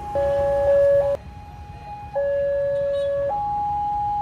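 Electronic warning alarm of a WANTECH railway level crossing, sounding two alternating tones, a higher and a lower one, each held for about a second, as the crossing warns of an approaching train. The sound drops away briefly about a second in, then the alternating tones resume.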